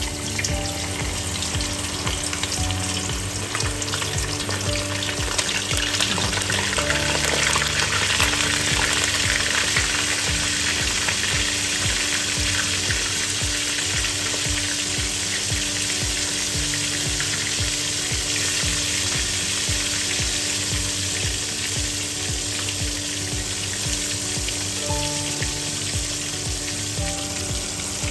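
Whole flour-coated fish deep-frying in a wok of hot oil: a steady, dense sizzle that swells a few seconds in, once the fish is fully in the oil, and then holds.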